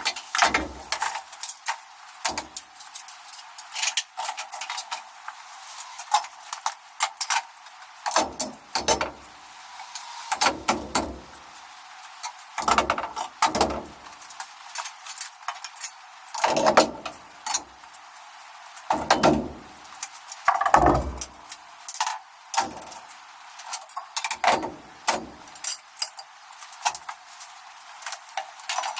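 Garden tools being hung on the steel conduit pegs of a wall-mounted tool rack: irregular clanks, rattles and knocks, some with a heavier thud.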